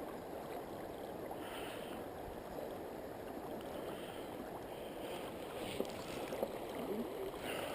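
Steady low rushing of wind and moving canal water, with a few faint small ticks near the end.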